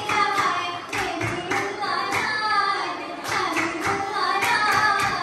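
Girls singing a folk song together into stage microphones, with the dancers' hand claps keeping the rhythm.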